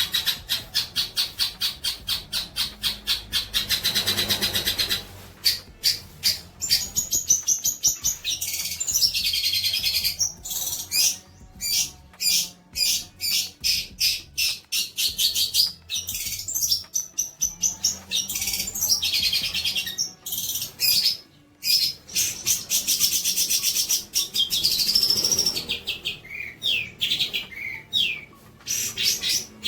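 A songbird singing: rapid runs of repeated high chirps and trills mixed with gliding whistled phrases, broken by short pauses.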